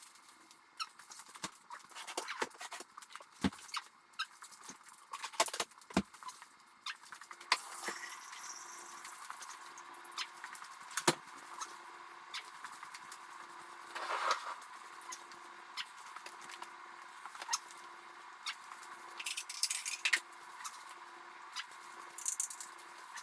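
Scattered light clicks and taps at irregular intervals, with a few brief high squeaks, from movement on a kitchen floor.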